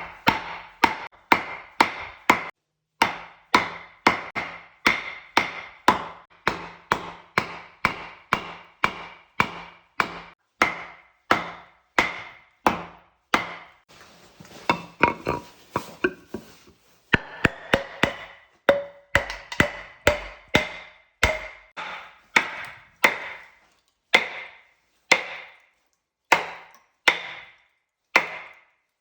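Steady, even chopping into wood, about three strikes every two seconds, each strike ringing briefly. Around halfway the strokes turn lighter and quicker for a few seconds before the steady chopping resumes.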